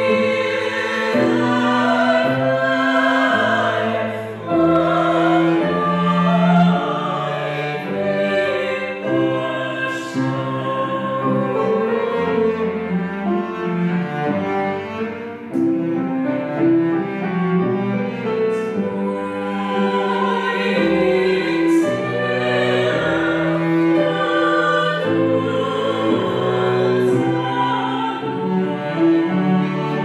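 Cello and other bowed strings playing a slow piece in sustained notes, with a voice singing over them.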